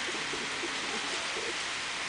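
Steady high hiss of outdoor ambience, with faint short low calls in the first second.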